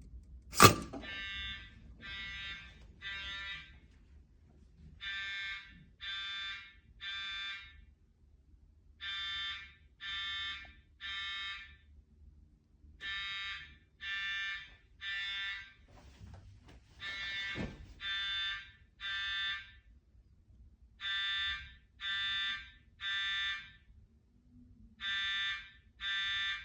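Fire alarm sounding in the temporal-three evacuation pattern: three short buzzing beeps, a pause, then again, repeating about every four seconds. A single sharp knock, the loudest sound, comes about half a second in, and a fainter rustle and click come around two-thirds of the way through.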